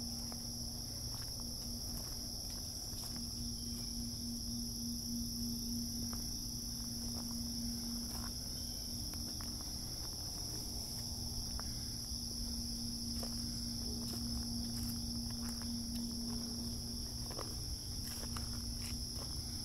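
Crickets chirping in a steady, unbroken chorus, with faint footsteps on a gravel and leaf trail.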